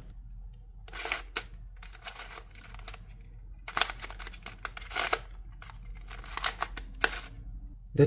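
Plastic pieces of a dinosaur-shaped 2x2x3 puzzle cube clicking and clacking in a few separate knocks as its layers are turned. The turning is blocky because the puzzle has not yet been lubed.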